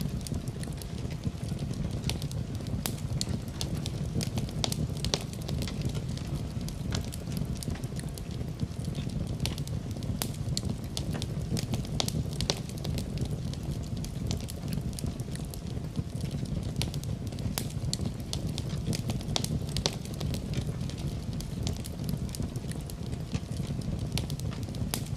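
Wood fire burning in a fireplace: a steady low rumble of flames with frequent, irregular crackles and pops.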